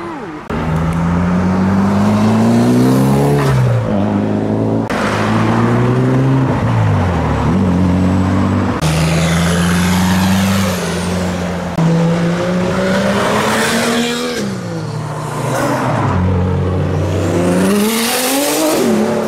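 Several modified cars driving past one after another, their engines revving up and dropping back through gear changes, with sudden changes from one car's sound to the next.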